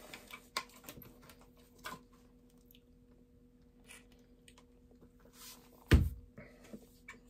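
Handling noise from a scoped bolt-action rifle being lifted into view: scattered light clicks and taps, then one heavy bump about six seconds in.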